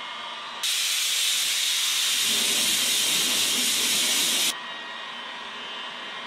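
Compressed-air blow gun hissing for about four seconds, starting and stopping suddenly, cooling a heated plastic bumper panel just pushed back into shape so that it stays there. A heat gun's fan runs steadily before and after the blast.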